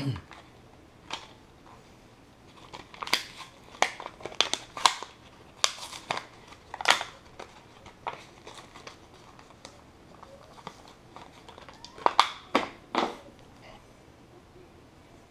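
Plastic battery blister pack crinkling and crackling as it is worked open by hand, in irregular runs of sharp crackles, busiest in the first half and again briefly near the end.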